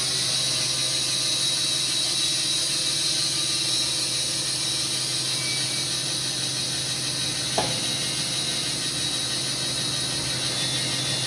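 Wood-Mizer industrial band sawmill running: a steady mechanical hum with a loud high hiss, and one sharp knock about seven and a half seconds in.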